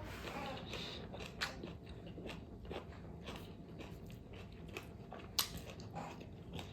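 Close-up eating sounds of someone chewing fatty pork: irregular wet clicks and smacks of the mouth, with one sharper click about five seconds in.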